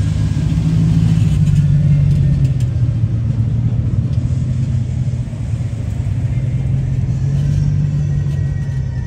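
A motor vehicle's engine runs with a loud, steady low rumble that eases off a little about halfway through and swells again near the end.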